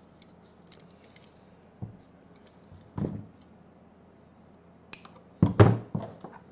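Thin 22-gauge floral wire being handled and cut with end-cutting nippers: scattered small clicks and a knock about three seconds in, then a louder cluster of knocks and clatter about five and a half seconds in.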